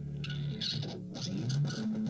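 Electric guitar played through the Make Sounds Loudly Thurston, a RAT-style distortion pedal with its phaser engaged, sounding several sustained distorted notes with a sweeping phase shift.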